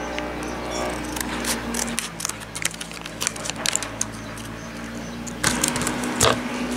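Scissors snipping and cutting open a plastic blister pack of liquid dye vials, with plastic crinkling and clicking, and a couple of louder scrapes near the end, over a steady low hum.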